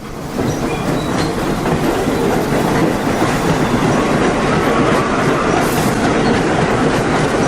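Subway train running along the track, its wheels clattering steadily over the rail joints, with light squeal.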